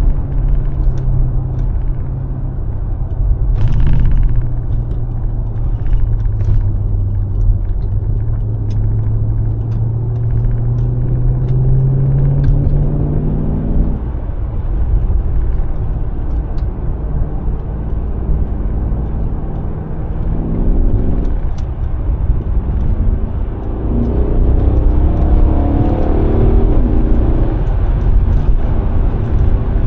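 Mercedes-AMG S63's V8 engine running on the move over road rumble. Its pitch climbs steadily under acceleration for several seconds, drops off suddenly about midway through, then rises again in shorter pulls near the end.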